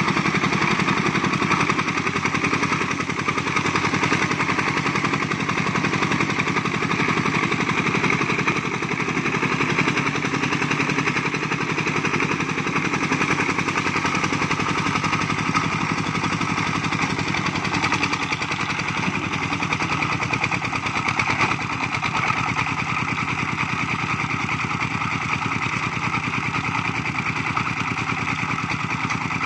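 Single-cylinder diesel engine of a homemade công nông tractor-cart, chugging steadily with rapid, even exhaust beats as it pulls a trailer load of logs up a steep slope.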